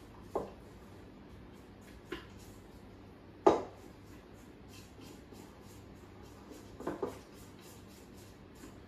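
A few short knocks against a stainless steel mixing bowl as custard-cookie dough is worked in it by hand, the loudest about three and a half seconds in and a quick pair near the end, over a faint steady hum.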